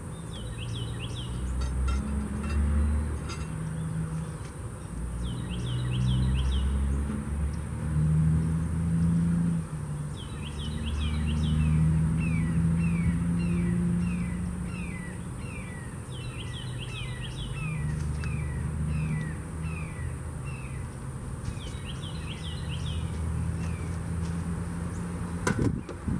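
Honeybees buzzing around an open hive, a low hum that rises and falls in pitch and loudness as they fly past. A songbird repeats short chirping phrases over it, and there is a single knock near the end.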